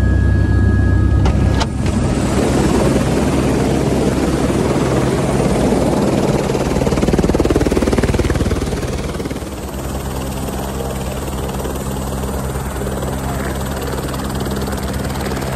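Single-engine turbine helicopter of the Airbus H125 (AS350) type running on the helipad with its rotors turning. For the first two seconds it is a low drone heard from inside the cabin. After a click it becomes the loud open-air beat of engine and rotor, which settles into a steadier hum about halfway through.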